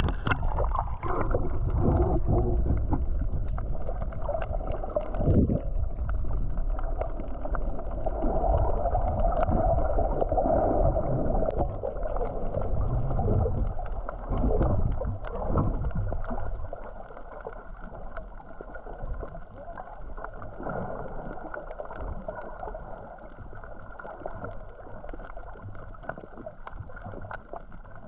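Muffled underwater water noise picked up by a GoPro camera in the sea, a dull churning hiss with nothing bright in it. It is louder for about the first sixteen seconds, then quieter.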